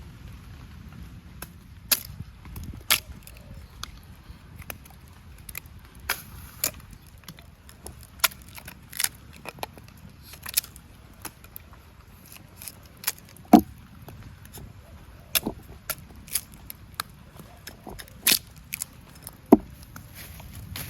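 Irregular sharp wooden cracks and knocks, roughly one or two a second, the loudest about two thirds of the way in and again near the end, over a low steady rumble.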